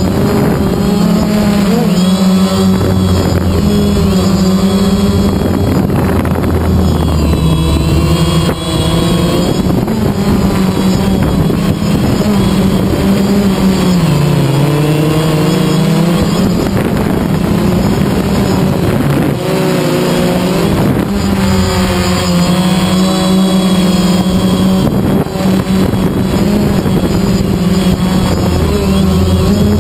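DJI Phantom quadcopter's motors and propellers whining steadily, heard up close from the GoPro mounted on the drone. The pitch wavers up and down with the throttle and dips clearly about halfway through.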